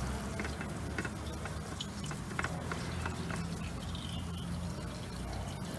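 Old engine oil trickling and dripping from the loosened oil filter mount of a Ford 1.6 L EcoBoost engine, with scattered light drip ticks over a steady low hum.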